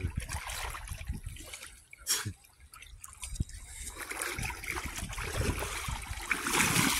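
Feet wading through shallow seawater, the water splashing and trickling around the legs with each step. There is a brief sharp sound about two seconds in.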